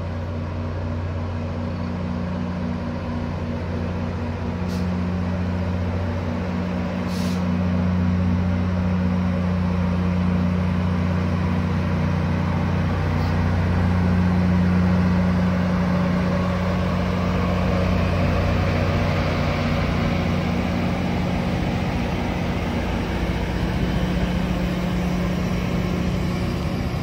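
GO Transit MP40PH-3C diesel locomotive pushing its bilevel coaches past, with a steady engine drone over wheel and rail rumble. The sound grows loudest about halfway through as the locomotive goes by. Two brief hisses come about five and seven seconds in.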